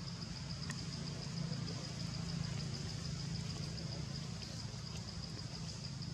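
Steady low engine hum, like a vehicle idling, with a steady high pulsing insect drone over it.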